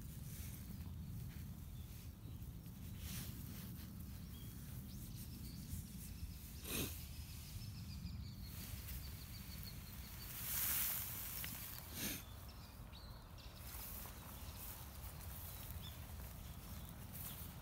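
Quiet outdoor background: a steady low rumble with a few soft rustles and knocks, and a louder rustle about eleven seconds in.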